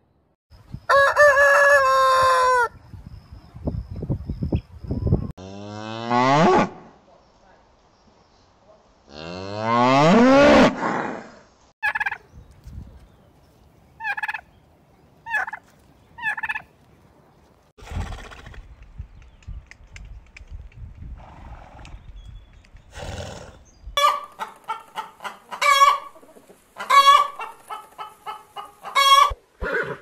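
Farm poultry, a turkey and chickens, calling in a series of separate calls. The loudest is a long call that sweeps up and down about ten seconds in, and a run of fast, short repeated calls comes near the end.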